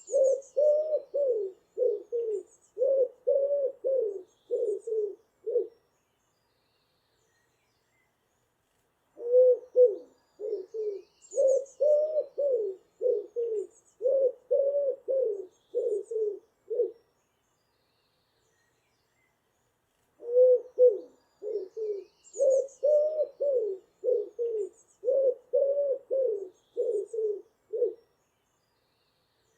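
Pigeon cooing in three bouts of rhythmic low coos, several notes a second, with pauses of a few seconds between bouts. Faint high chirps from small birds sound now and then.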